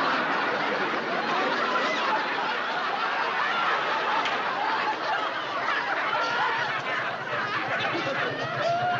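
A group of people laughing and chuckling heartily without a break.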